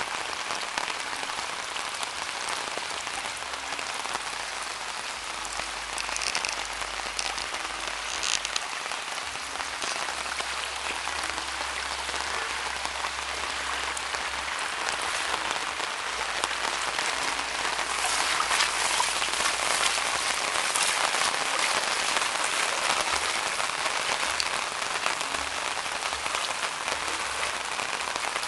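Heavy rain falling steadily, a dense even hiss of drops, growing somewhat louder about two-thirds of the way through.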